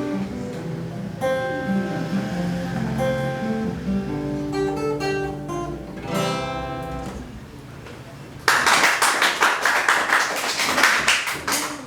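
Acoustic guitar music: held plucked notes, then, after a short quieter moment about eight seconds in, a louder stretch of fast, dense strokes.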